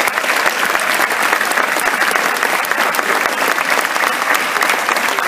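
A large audience applauding steadily, a dense, even patter of many hands clapping.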